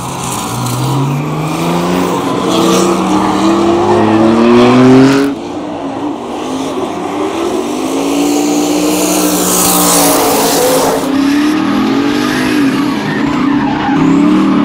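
Twin-turbo 5.3-litre V8 of a Corvette C6 drift car revving, its pitch climbing for about five seconds before cutting off suddenly. Tyres then squeal and skid while the engine holds revs, its note rising and falling.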